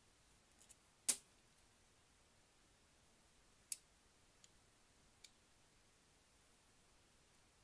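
A few sharp clicks of small plastic and metal model-locomotive motor parts being handled and prised apart: a loud click about a second in, another a little before the middle, and two faint ticks after it.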